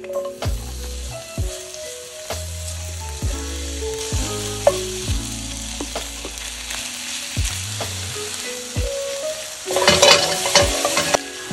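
Sliced onion, sausage and mushrooms sizzling in hot oil in a frying pan, with short knocks and scrapes of a wooden spatula as they are added and stirred. The sizzle and clatter are loudest about ten seconds in, as the pan is tossed.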